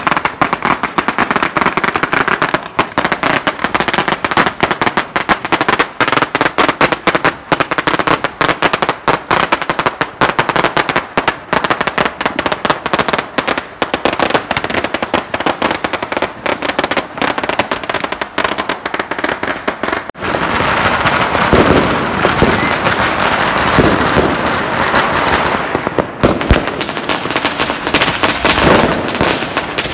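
Firecrackers going off in a loud, continuous rapid crackle. About twenty seconds in the crackling thickens and turns louder, with heavier bangs mixed in.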